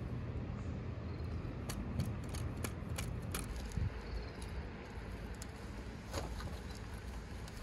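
Beach ambience: a steady low rumble of surf or wind, with a scatter of small sharp clicks, most of them between about two and three and a half seconds in.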